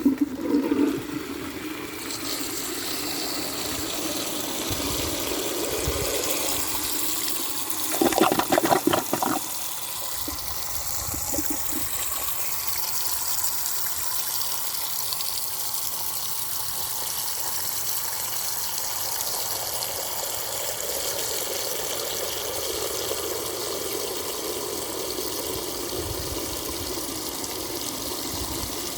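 Cast iron high-level toilet cistern flushing: a loud clang at the start as it is pulled, then water rushing, a burst of clattering knocks about eight seconds in, and steady rushing water as the cistern refills through its Croydon valve, which is missing its washer.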